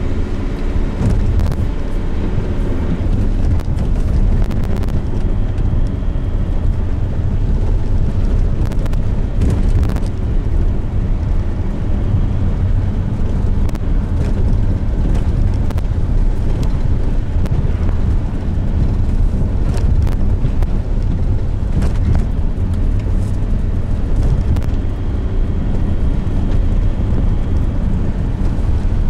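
Car driving steadily along a flat road, heard from inside the cabin: a constant low rumble of engine and tyre noise, with a few faint knocks.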